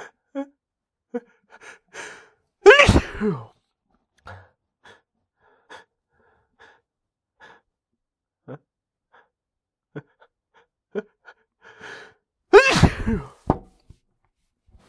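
A man sneezes twice, about ten seconds apart. Each sneeze is a loud voiced blast that falls in pitch, and each comes after a run of short, faint, hitching catches of breath. These are allergy sneezes with a drawn-out buildup.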